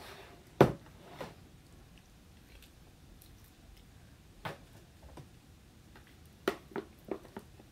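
A few irregular light knocks and clicks, the loudest one about half a second in, a couple of faint ones in the middle, and a quick run of four or five near the end.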